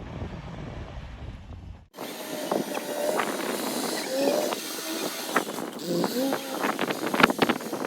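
Kubota L4018 tractor's diesel engine running with a low, steady rumble, which cuts off abruptly about two seconds in. A thinner hiss follows, with scattered clicks and knocks that come thicker near the end.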